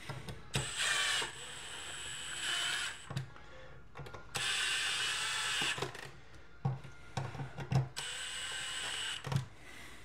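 Milwaukee Fuel brushless cordless driver whining in several short runs as it drives a receptacle's mounting screws into the electrical box, with small clicks of handling between the runs.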